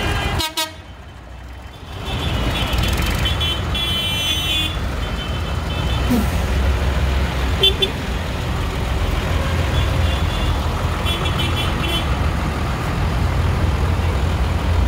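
Diesel engines of a line of farm tractors running as they drive slowly past, a steady deep rumble, with horns tooted several times over it. The sound drops out briefly about half a second in.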